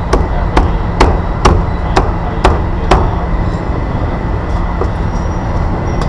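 Seven sharp knocks, about two a second, that stop after about three seconds, over a steady low rumble.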